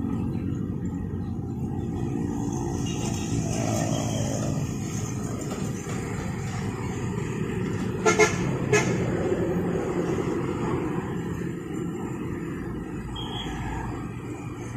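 Road traffic: car, truck and motorbike engines running as the vehicles pass, with two short vehicle-horn toots about eight seconds in.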